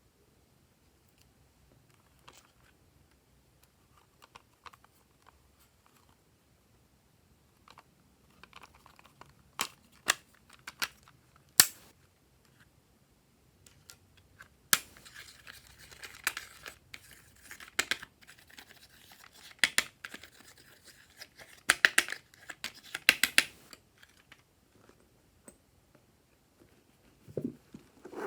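Close-up handling sounds while mixing add-ins into slime: a few sharp clicks, then about ten seconds of crackling and crinkling with quick snaps, which then stops.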